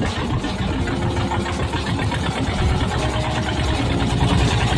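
A fishing boat's engine running steadily, a low drone, with the rush of wind and sea.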